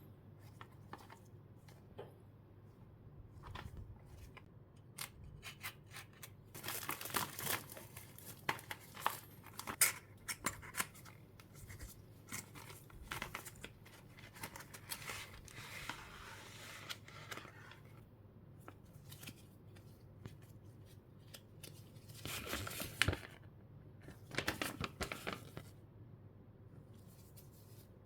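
Packaging being opened by hand: cutting, tearing and crinkling in three spells, with scattered clicks and taps between them.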